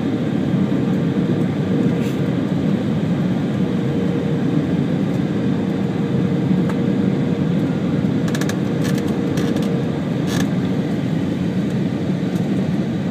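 Airliner cabin noise during the landing rollout on a wet runway: a steady loud rush of jet engines and airflow as the plane decelerates. A faint steady whine fades out about ten seconds in, and a few light clicks come near the end.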